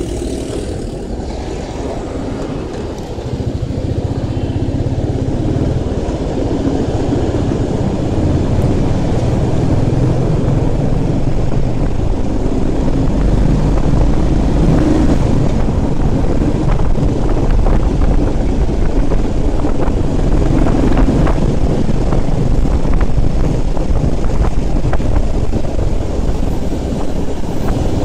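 Motorcycle running at road speed, its engine mixed with wind rushing over the microphone. The noise grows louder about three seconds in and stays steady.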